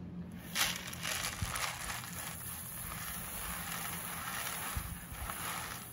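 Gravel being poured out of a plastic bucket: a steady rattling hiss of small stones sliding out and landing, starting about half a second in and lasting about five seconds.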